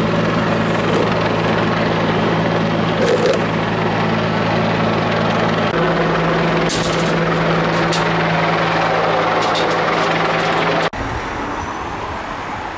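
A vehicle engine idling: a steady low hum under a rushing noise, with a few short clicks and knocks in the middle. The sound drops abruptly to a quieter, rougher rumble near the end.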